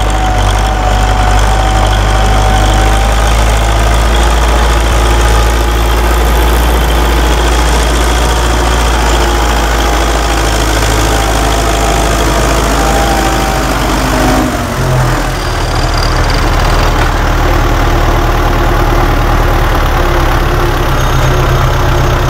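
Belarus tractor's diesel engine running steadily under load as it pulls a mounted plough through the soil, heard close up; the engine note dips briefly and shifts in pitch about fifteen seconds in.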